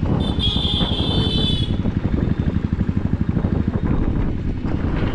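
Royal Enfield single-cylinder motorcycle engine running steadily under way, its exhaust a rapid, even pulsing. Near the start a high-pitched vehicle horn sounds for about a second and a half.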